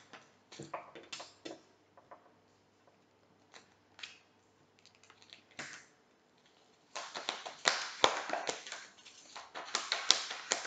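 A deck of tarot cards being shuffled by hand: scattered soft flicks and taps of the cards, then a denser run of quick card slaps and riffling from about seven seconds in.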